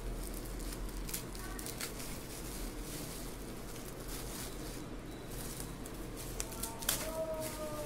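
Bubble-wrap plastic pouch crinkling and rustling as it is handled and unwrapped, in scattered crackles over a low steady hum. Near the end comes a faint long note, falling slightly in pitch.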